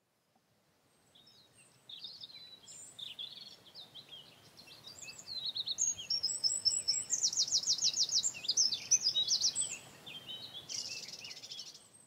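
Songbird singing: a long run of high chirps and rapid trills that fades in, is loudest with a fast trill in the middle, and stops near the end.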